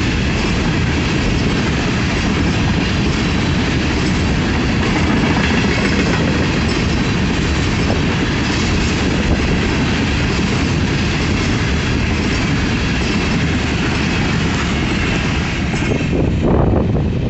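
Freight train of loaded tank cars rolling past close by: steady noise of steel wheels running on the rails. About sixteen seconds in the last car passes and the rail noise falls away.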